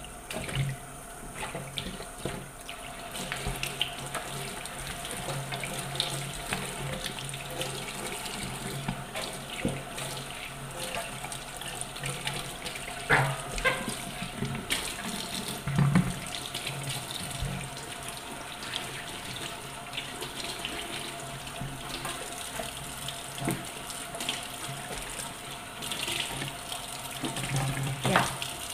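Kitchen tap running steadily into a stainless sink, with a few short knocks about halfway through.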